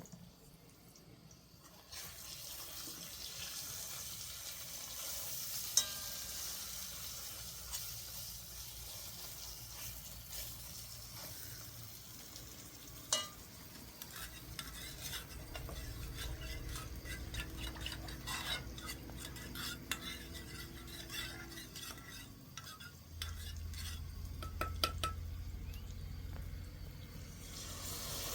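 Food sizzling in a pan, with stirring and the clicks and scrapes of a utensil against the pan. The sizzle starts about two seconds in.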